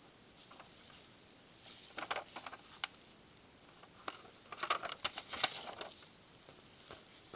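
A sheet of printer paper crackling and rustling in a plastic Lexmark drum unit as it is handled, with light plastic clicks: one short bout about two seconds in and a longer one from about four to six seconds in.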